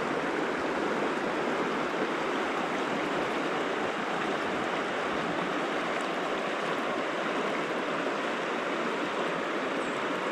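Shallow river running steadily over a rocky riffle, a continuous rushing of water.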